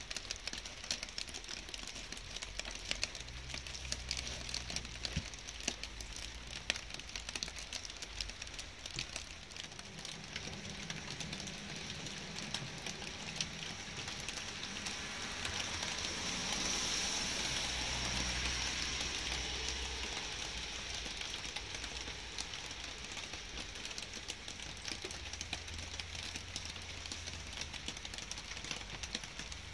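Light rain with close drops ticking in a steady patter. Near the middle a broad hiss swells and then fades, and a low rumble comes and goes underneath.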